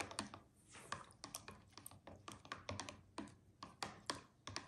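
Plastic spoon stirring water in a clear plastic tub, clicking and knocking against the tub's sides and bottom in quick, irregular taps, about five a second.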